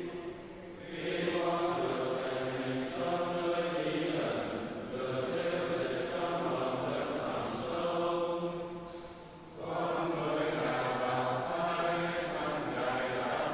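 A congregation of men's and women's voices chanting prayers together in Vietnamese on a steady reciting tone, in long phrases with a short breath pause about a second in and another about nine and a half seconds in.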